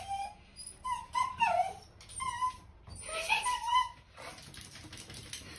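Small dog whining and whimpering at a door in short, high, wavering calls, several times over, followed by a run of faint clicks near the end.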